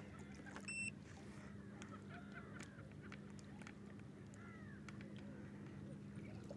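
Faint distant birds calling a few times, short arched calls, over a low steady hum.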